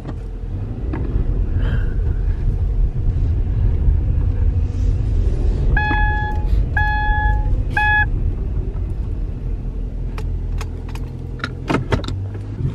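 Car cabin sound while driving slowly: a steady low rumble of engine and tyres. About six to eight seconds in come three electronic beeps, two longer and one short, and near the end a few clicks as the automatic gear shifter is moved.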